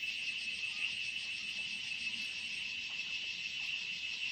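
Steady, high-pitched insect chorus, a continuous rapid trill.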